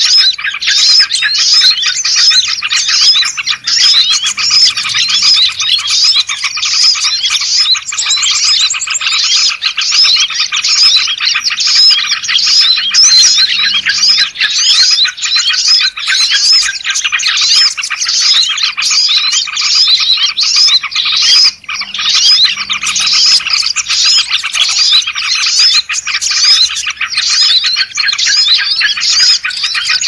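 Dense, continuous chorus of many small songbirds chirping and twittering over one another, a bird-lure (pikat) track meant to draw small birds in, mixing bulbul calls such as yellow-vented bulbul (trucuk) and sooty-headed bulbul (kutilang).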